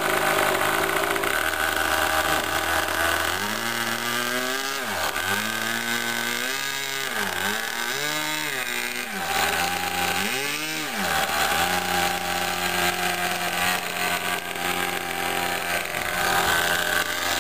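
O.S. 46 AX two-stroke model-aircraft glow engine running with no muffler on. Several times in the middle it speeds up in pitch and drops back, then it settles into a steady run.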